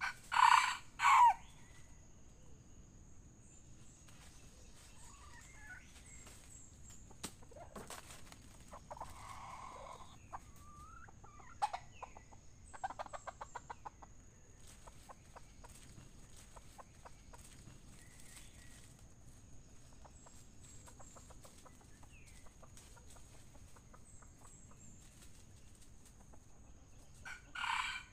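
Red junglefowl rooster crowing loudly, a short two-part crow right at the start and again near the end, with softer clucking in between over a faint steady high-pitched whine.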